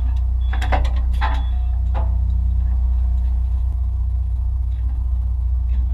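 Boat engine running with a steady low drone, with a few brief sounds in the first couple of seconds.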